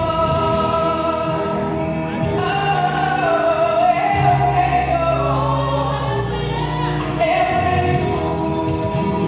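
Gospel worship song: voices holding long, slowly gliding notes over steady instrumental accompaniment.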